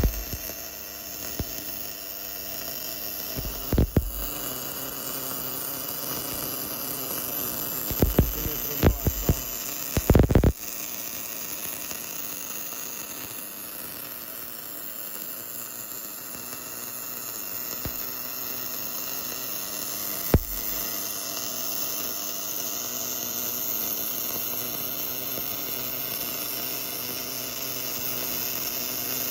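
Automatic bore-cladding welder laying weld inside a worn axle bore: a steady arc hiss over a machine hum. Sharp knocks break in near the start, around 4 s, in a cluster between about 8 and 10 seconds, and once more about 20 seconds in.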